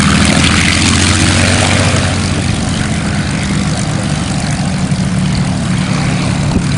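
Propeller aircraft's engine running steadily on the ground as the plane taxis on grass, a low engine drone under the rushing air of the propeller. The drone eases off slightly after the first couple of seconds.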